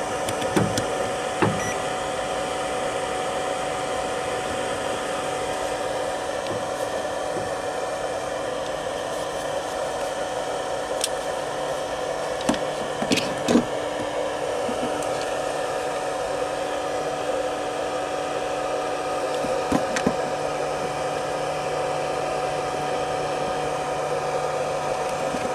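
Cooling fan of a 500-watt pure sine wave inverter running steadily under load: a constant whirring noise with a steady hum through it. A few light clicks and knocks come over it.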